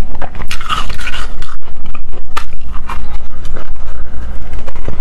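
Teeth biting and crunching into a block of frozen shaved ice: a dense, irregular run of crisp crackles and scrapes.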